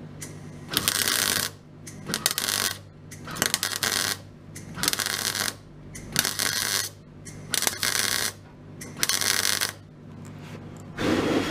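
MIG welder laying short stitch welds on steel car sill, in about eight separate bursts of half a second to a second each. The arc is burning through cavity wax on the back of the panel, whose fumes blow away the shielding gas and make it weld badly.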